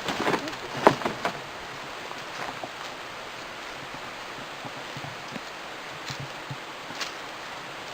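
Boards and debris being shifted by hand: a quick cluster of sharp knocks and clatter in the first second or so, then a steady outdoor hiss with a few faint clicks.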